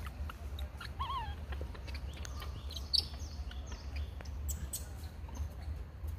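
Macaque giving one short wavering squeak about a second in, followed by a sharp click near three seconds and a few short high falling chirps, over a steady low rumble.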